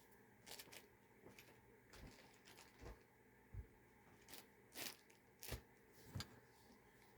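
Faint, irregular clicks, taps and light rustling of small plastic camera parts and accessories being handled and fitted together, about a dozen in all.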